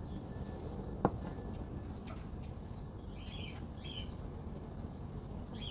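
A pet parrot gives two short, soft chirps at about three and four seconds, with a sharp click about a second in and a few faint ticks after it.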